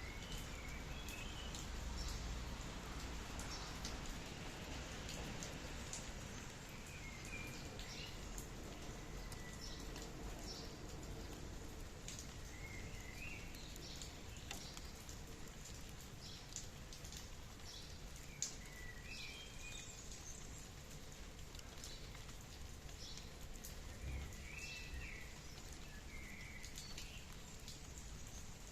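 Steady light rain with scattered drops, and a bird giving short, brief calls every five or six seconds.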